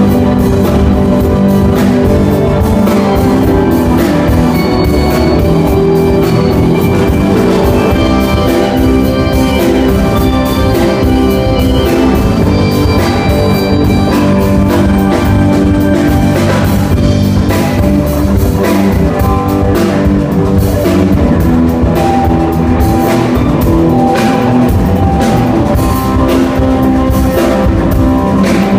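A live rock band playing: drum kit, electric guitar, bass and keyboard, loud and continuous.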